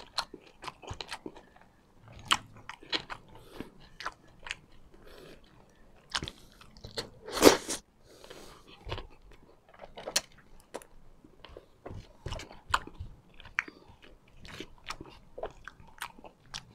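Close-miked chewing of a mouthful of food, with wet mouth clicks and lip smacks that come irregularly. There is one louder smack about seven and a half seconds in.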